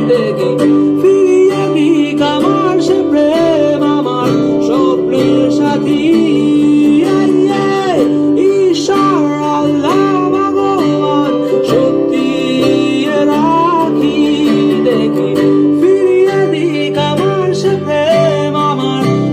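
A song with a singer and guitar playing through a Photron P10 portable Bluetooth speaker inside a car, with little deep bass.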